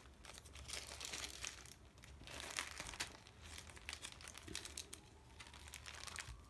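Plastic sleeves of a photo album crinkling and rustling as the pages are leafed through by hand, in a run of quick crackles.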